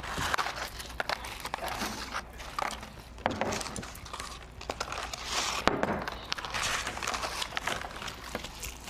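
Paper French-fry cartons and paper bags rustling and crinkling under hands as two people speed-eat fries, with chewing. Irregular rustles and sharp clicks, loudest a little after halfway.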